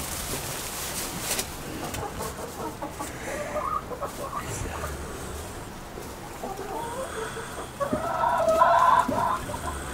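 A chicken clucking in short calls, with a louder call lasting about a second around eight seconds in.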